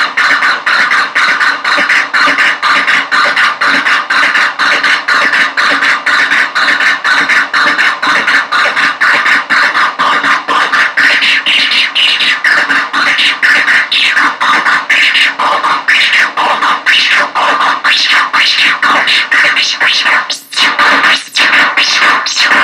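Harsh electronic noise from an analog synthesizer and drone synth patched into each other, played through a small bass practice amp: a dense, rapidly stuttering buzz with sweeping filtered tones rising and falling from about halfway through, cutting out briefly twice near the end.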